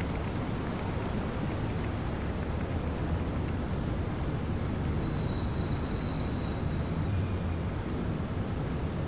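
Steady low rumble of a city at night: distant traffic hum with no distinct events.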